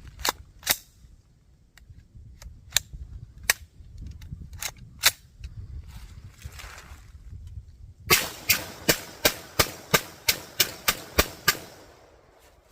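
9mm shots from a 3D-printed MAC-11-style pistol: several single shots spaced a second or so apart, then a rapid string of about a dozen shots at roughly four a second, starting about eight seconds in.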